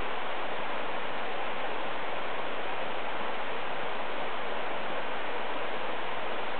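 Steady rushing water: an even, unbroken hiss.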